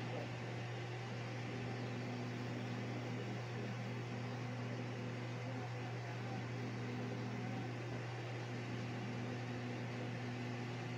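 Steady low hum over an even background hiss, unchanging throughout, with no distinct pencil strokes standing out.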